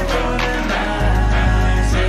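Hip-hop song in an instrumental stretch between vocal lines: held chords over deep bass, the bass coming in stronger about a second in.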